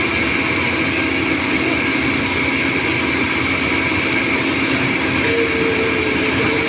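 Doosan 225 excavator's diesel engine and hydraulics running steadily while working, with a constant whine, and a higher steady tone joining about five seconds in.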